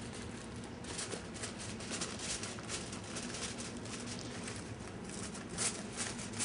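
Crinkling and rustling of a cooking packet's wrapping as its edges are folded and crimped shut to seal it, in irregular crackles.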